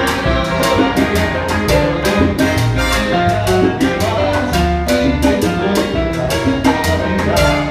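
Live salsa band playing: trombones holding notes over piano, bass and a steady beat of timbales strikes several times a second.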